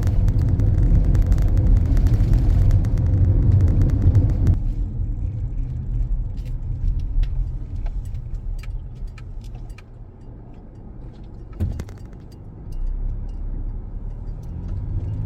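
Cabin noise of a 2014 Honda CR-V driving: a loud low tyre-and-engine rumble that drops suddenly about four and a half seconds in as the car slows. Scattered small ticks follow, with a single knock near twelve seconds, before the rumble builds again near the end.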